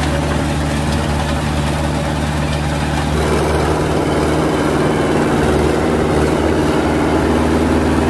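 Farm tractor's diesel engine running steadily under load while driving a rotary tiller through the soil. About three seconds in, the engine note shifts to a different steady running sound.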